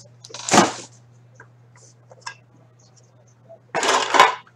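Trading-card packaging being handled: a cardboard card box and a clear plastic card case scraping and rustling in the hands. There is a short burst about half a second in and a longer one near the end, over a steady low electrical hum.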